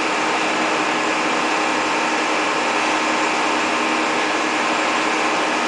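Caterpillar E240B excavator's diesel engine running with an even, unchanging drone.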